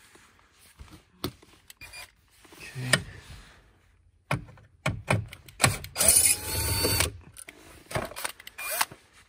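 Small cordless drill with a 7mm socket whirring for about a second, six seconds in, rising in pitch as it runs a screw out of a metal bracket. Scattered clicks and knocks of the screws and metal bracket come before and after, with a sharp knock about three seconds in.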